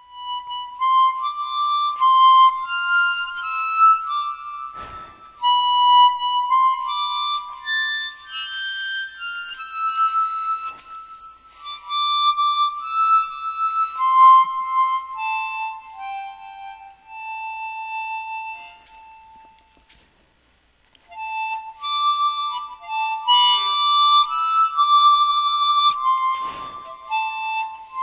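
Solo harmonica playing a slow instrumental melody, one held note at a time, with a brief break about twenty seconds in.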